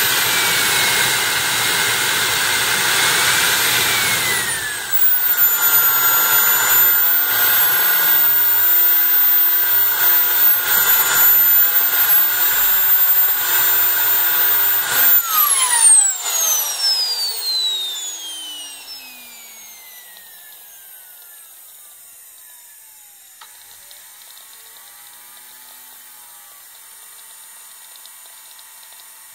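JetCat model jet turbine engine running at high rpm with a loud whine, throttled back about four seconds in. About fifteen seconds in the fuel pump is cut and the whine glides steadily down in pitch as the turbine spools down, leaving a faint whirr after a small click.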